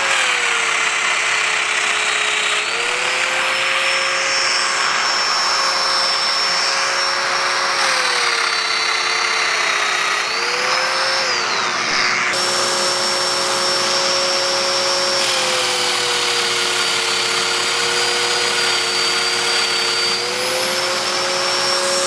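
Festool DF500 Domino joiner running while cutting 28 mm deep mortises in wood. Its motor pitch sags three times, as the cutter plunges in under load, and rises again as the cutter is withdrawn. A dust extractor runs steadily underneath.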